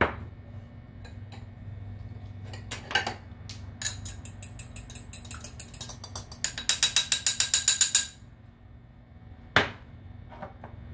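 Fork beating egg in a small glass bowl: a quick, even run of clinks, about seven a second, lasting under two seconds, after a few scattered clinks and knocks of utensils. One sharp clink near the end.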